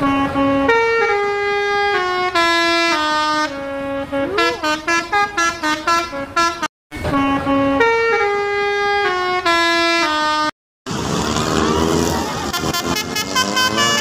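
Bus 'telolet basuri' musical horn playing a tune of held, stepped notes. It cuts out briefly twice. In the last few seconds a different horn tune, with overlapping wavering notes, plays over street noise.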